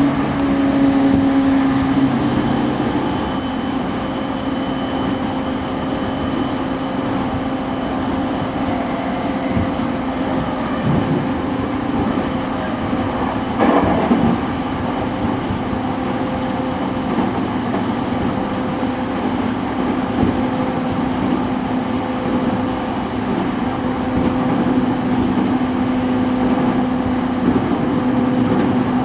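JR East E231-1000 series commuter train running at steady speed, heard from inside the car: a steady traction-motor hum at one unchanging pitch over the rumble of wheels on rail, with a single knock about halfway through.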